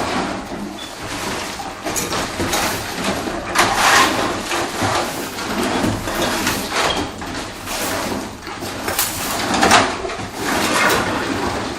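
House demolition: a steady clatter of scraping, knocking and rattling as debris and timber are broken out and moved, with louder crashes every few seconds.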